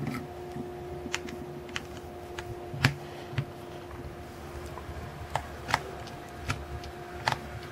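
Irregular small clicks and ticks of a screwdriver turning out the motor-module screws of a metal version 6 airsoft gearbox, about a dozen in all, the loudest about three seconds in, over a faint steady hum.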